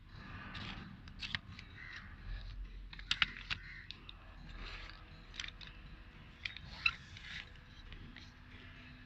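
Faint handling noise: scattered light clicks and taps with short scrapes and rustles, with a few sharper clicks about a third of the way in and again near the end.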